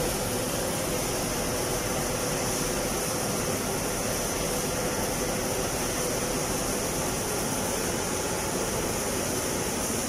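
Steady, even machine noise of an automatic animal-feed pellet production line running, with no separate knocks or beats standing out.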